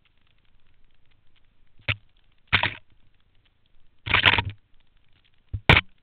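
Skis scraping over snow in a handful of short, loud, hissing bursts, the longest about half a second near the middle, over a faint steady crackle.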